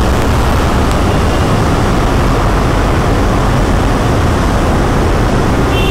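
Steady, loud rush of wind and road noise, with a low rumble, from a Royal Enfield Himalayan motorcycle riding through a tunnel among trucks on a wet road.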